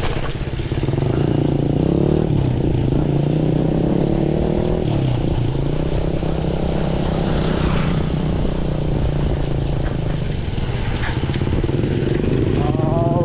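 A motor vehicle engine running close by, its pitch rising as it speeds up in the first few seconds, over a steady low wind rumble on the microphone.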